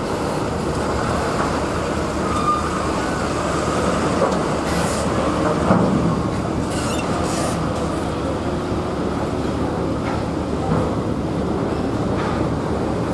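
Steady rumble of heavy vehicle traffic, buses and trucks with engines running, with a few brief knocks and clatters in the middle and near the end.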